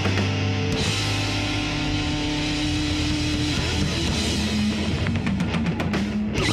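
Live rock band, two electric guitars and a drum kit, playing an instrumental passage with held distorted guitar notes; a quick run of drum and cymbal hits comes near the end.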